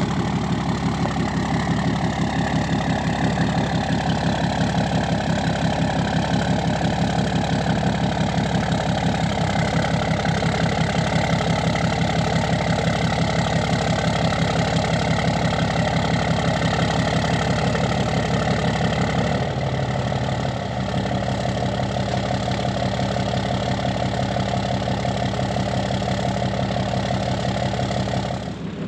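An engine idling steadily, with the even low pulse of its firing, its note shifting slightly about two-thirds of the way through.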